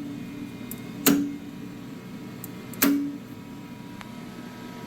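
Two sharp clicks, about a second and about three seconds in, each with a short low ring: the pinch-roller levers of a DTF roll-film printer being snapped down to lower the rollers onto the film.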